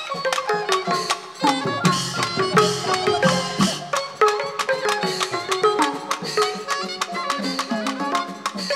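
Burmese traditional ensemble music: a quick melody of short struck notes on tuned percussion, with sharp clicks of bamboo clappers throughout.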